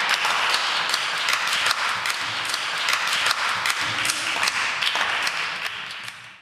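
Applause from many people, a dense patter of hand clapping that fades away near the end.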